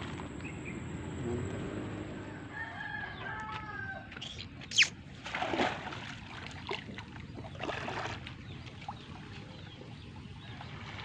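A rooster crowing a few seconds in, over a steady outdoor background. A single sharp click near the middle is the loudest sound.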